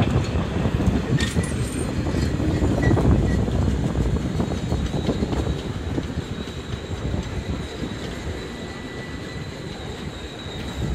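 Miniature passenger train of a 381 mm-gauge park railway, hauled by a small Krauss steam locomotive, rolling past: a steady rumble and clatter of wheels on the rails, loudest in the first few seconds and then easing off. A faint high squeal runs under it, and there is one sharp click about a second in.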